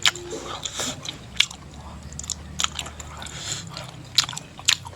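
A person chewing and biting food close to the microphone, with irregular sharp crunchy clicks every second or so.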